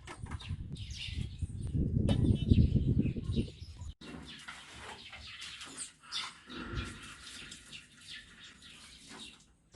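Birds chirping and twittering, with a loud low rumble over them for the first three and a half seconds before an abrupt cut.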